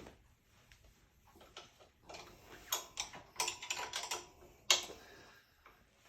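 A run of sharp clicks and knocks, metal tools being worked on a bottom bracket puller, clustered in the middle of the stretch with the sharpest knock near the end of it.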